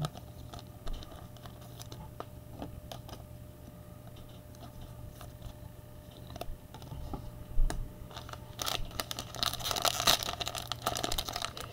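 Foil trading-card pack wrapper crinkling and being torn open, starting about nine seconds in. Before that, only faint clicks of cards being handled.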